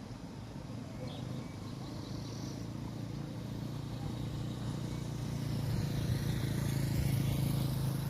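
A motor vehicle's engine drawing nearer: a low, steady hum that grows gradually louder.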